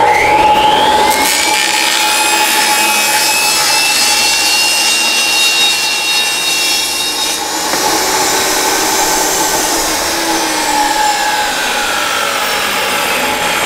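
RIDGID R45171 10-inch compact table saw starting up with a rising whine, then running at full speed with a steady high whine as its blade rips through a thin plywood sheet. The cutting noise changes about seven seconds in as the cut goes on.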